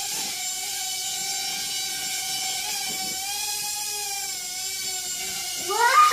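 Small toy quadcopter drone's propellers whining steadily, the pitch wavering slightly as it hovers. Near the end a louder sound sweeps up and back down in pitch.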